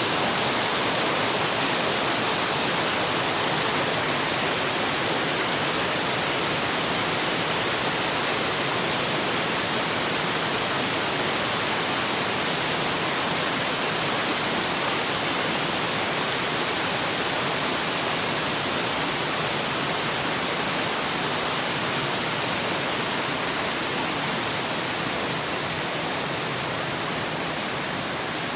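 Waterfall rushing: a steady, even noise of falling water that eases slightly near the end.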